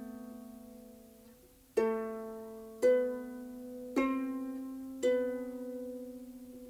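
Harp played slowly: single plucked notes about a second apart, each ringing and fading before the next.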